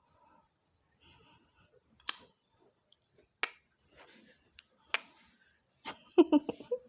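Three sharp clicks about a second and a half apart, then a short, wavering coo from a two-month-old baby near the end.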